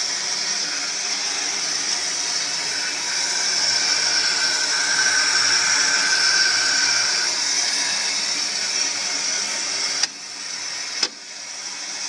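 Water rushing out through a steam boiler's open drain valve, a steady loud hiss. It drops away suddenly with a click about ten seconds in as the drain valve is closed, and a second sharp click follows a second later.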